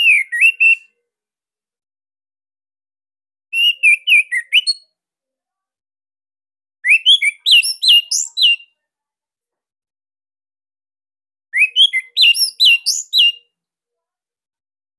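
A songbird sings four short bursts of quick, sharp whistled notes, each one to two seconds long, with about two to three seconds of silence between them.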